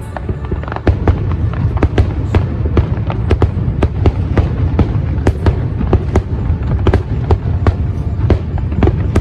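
Fireworks going off in a dense barrage: many sharp bangs and cracks a second over a continuous low rumble, growing heavier about a second in.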